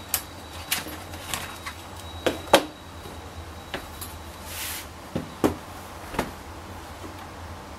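Hard plastic clicks and knocks from an HP ProBook 650 G1 laptop as its battery is unlatched and taken out and the laptop is turned over and set down on a desk. The loudest knock comes about two and a half seconds in, with a short scrape about four and a half seconds in.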